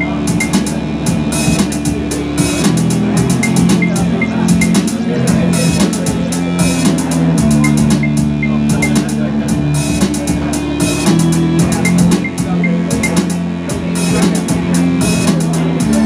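A live band playing an instrumental passage of an upbeat synth-rock song. A drum machine keeps a steady beat under electric guitar, bass guitar and synthesizer.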